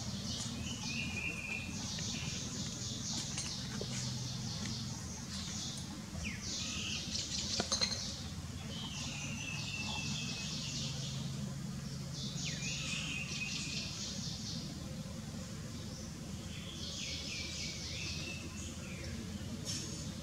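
A small bird singing short, high, chirping phrases, repeated every few seconds, over a steady low hum. A brief sharp click comes near the middle.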